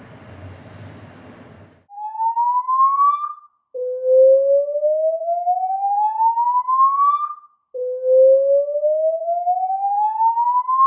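Loud hotel fire alarm sounding a slow-whoop evacuation tone: a steady rising sweep, repeated three times with short breaks, signalling everyone to evacuate. It starts about two seconds in, after a quieter steady rushing noise.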